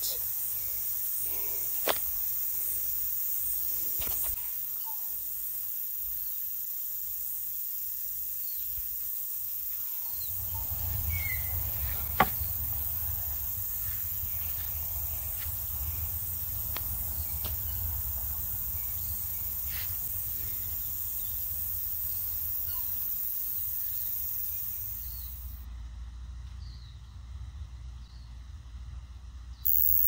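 Outdoor bush ambience: a steady high hiss with a few faint, scattered bird chirps. From about a third of the way in, a low wind rumble on the microphone joins it, with a couple of sharp handling clicks.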